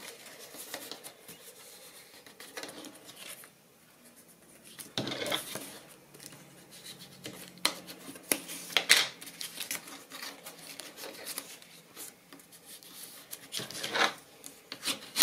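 Paper and cardstock being handled on a tabletop: irregular rustles and scrapes with several sharp clicks, the loudest about five, nine and fourteen seconds in.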